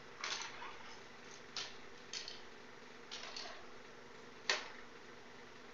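A few light clicks and knocks from a PCP air rifle being handled and put back together, the sharpest near the end, over a faint steady hum.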